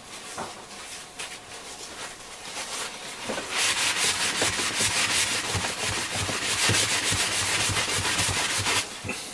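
Cloth rubbing briskly over a transistor radio's case, buffing in plastic cleaner-polish. Light strokes at first, then about three and a half seconds in the strokes get much louder and faster, stopping shortly before the end.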